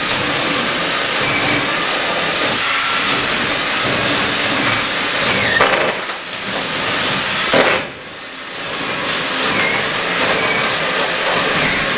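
Handheld power saw running steadily as it cuts a wire channel into the foam face of an insulated concrete form wall. The sound dips briefly about six seconds in and again just before eight seconds, as the cut pauses.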